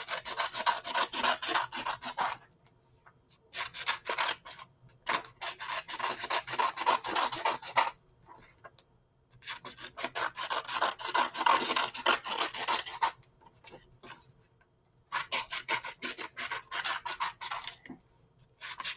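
Scissors cutting long strips of plain white paper: runs of rapid, rasping snips a few seconds each, about four of them with short pauses between, and another starting right at the end.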